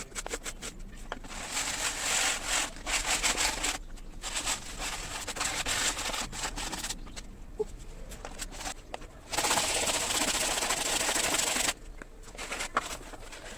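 Hand sanding or rubbing on wood: runs of quick, rasping strokes, broken by a steady loud hiss lasting a little over two seconds about nine seconds in.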